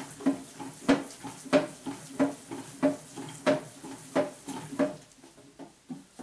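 Stainless-steel hand-crank meat mixer being turned, knocking and clanking about one and a half times a second as the paddles work through ground meat mixed with seasoning and water. The knocks grow softer near the end.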